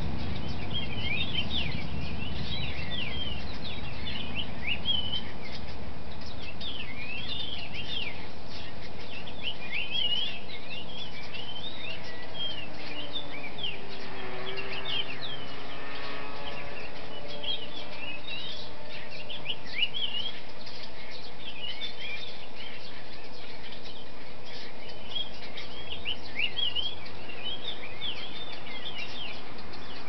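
Several small songbirds chirping, dense short high chirps one after another, over a steady background hiss. About halfway through a faint low sound with several tones rises and fades, dipping slightly in pitch.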